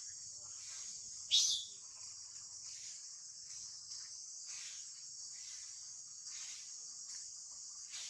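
A steady high-pitched buzz of insects, with one short, loud, high squeal from a baby macaque a little over a second in.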